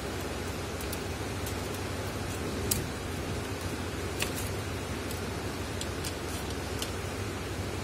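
Steady background hiss, with a few faint small clicks and taps as small smartphone parts are picked up and handled on a workbench, the clearest about three and four seconds in.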